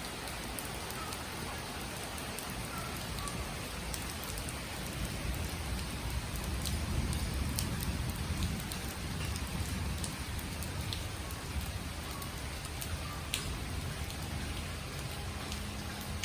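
Rain falling steadily on surfaces as an even hiss, with scattered sharp ticks of individual drops. A low rumble swells in the middle.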